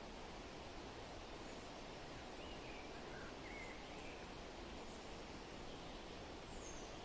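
Steady wind blowing, an even rushing hiss that stays constant throughout, with a few faint bird chirps in the middle and one near the end.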